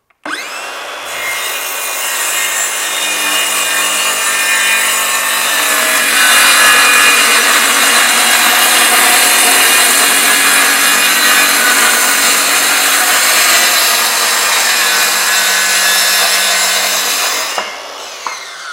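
Circular saw starting up and cutting a long straight rip through a wooden IKEA cover panel, running steadily for about seventeen seconds before the trigger is released and the blade spins down near the end.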